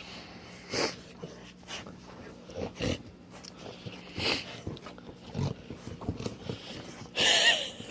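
A sleeping dog snoring, with separate snoring breaths every second or two and the loudest, longest one near the end.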